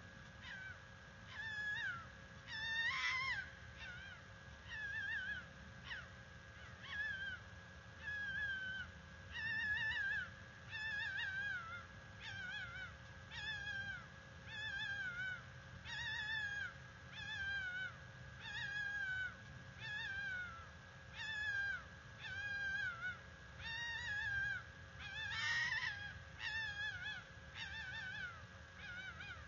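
Female fox giving its mating call: a long string of wavering, scream-like cries that fall in pitch, about one a second, with a louder, harsher scream near the start and another near the end.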